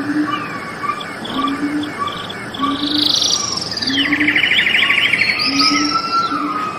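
Birds chirping and trilling, with buzzy rapid trills and short chirps overlapping. A low, short call repeats about once a second underneath.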